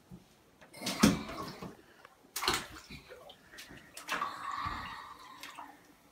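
Water splashing and sloshing in a bathtub as hands drop in and stir around a bath bomb: three separate splashes, the first about a second in and the loudest, the last a longer swishing.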